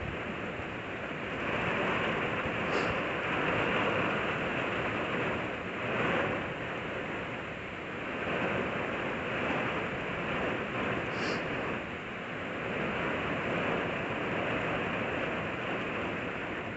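Strong storm wind blowing in gusts, a steady rushing noise that swells and eases every few seconds.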